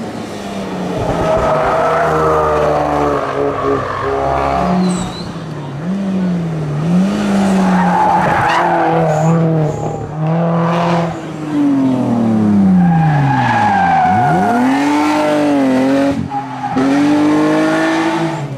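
Hillclimb race car engine at full throttle, revving up and dropping back repeatedly as it shifts gears. About two-thirds of the way in the revs fall steeply, as for braking into a bend, then climb again.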